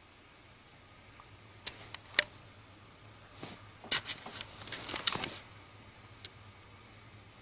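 Quiet room with a few soft clicks and rustles: a couple about two seconds in, a denser cluster around four to five seconds in, and one more near the end.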